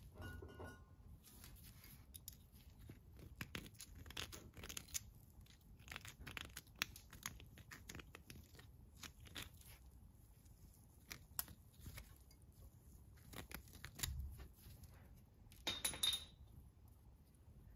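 Faint rubbing and rustling of a shop rag and nitrile-gloved hand wiping out the inside of a small crawler's rear differential housing, with scattered small clicks and scrapes. A sharper, louder scrape comes near the end.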